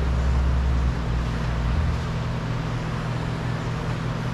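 Steady low mechanical hum over a background hiss, with a deeper rumble in the first couple of seconds that then eases. No distinct clicks or snaps.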